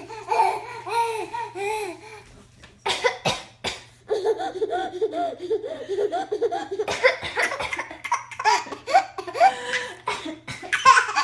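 An 8-month-old baby girl laughing in a string of short, repeated bursts, broken about three seconds in by a woman's short run of coughs, after which the baby laughs again, louder near the end.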